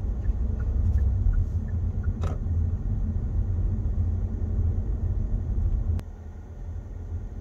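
Low, steady road and engine rumble inside the cabin of a moving Kia car, with a few faint ticks; it becomes quieter about six seconds in, after a short click.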